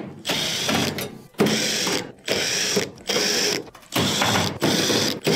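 Cordless drill/driver with a Phillips bit running in short repeated bursts, about six of them, backing screws out of a range's sheet-metal rear panel.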